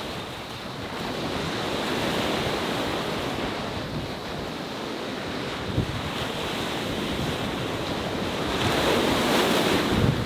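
Wind buffeting the microphone over the rush of choppy sea waves, swelling louder for a second or two near the end.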